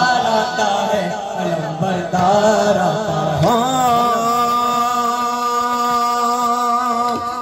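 Noha recitation: a sung lament voice moving through a phrase, then rising into one long held note from about halfway that stops just before the end.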